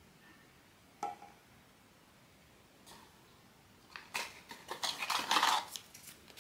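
Hands handling blind-box packaging and a small plastic toy figure: a single sharp tap about a second in, then a quick run of clicks and crinkling about four seconds in, loudest near the end.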